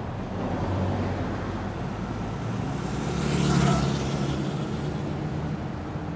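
Street traffic: cars running along a city street, with one vehicle passing close and loudest about three and a half seconds in.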